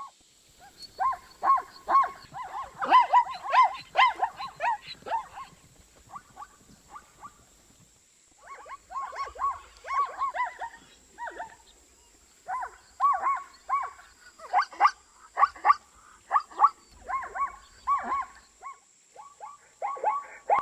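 Zebra calling in several bouts of rapid, short, pitched calls repeated a few times a second, with brief pauses between bouts.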